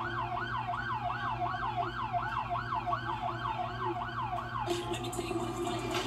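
Emergency-vehicle siren in a fast yelp, its pitch sweeping up and down about three times a second, cutting off about four and a half seconds in.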